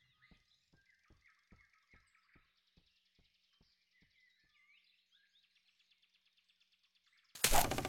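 Quiet animated-forest ambience: faint bird chirps and a series of soft thumps, about two and a half a second, that fade away. Near the end comes a sudden loud burst of noise lasting about half a second.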